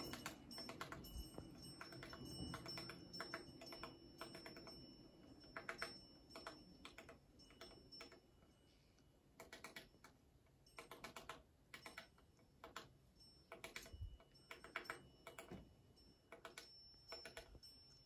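Faint, dry ticking: short runs of quick clicks, recurring every half second to a second.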